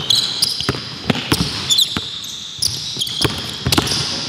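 A basketball bouncing on a hardwood gym court, with short, sharp high sneaker squeaks mixed in among the bounces.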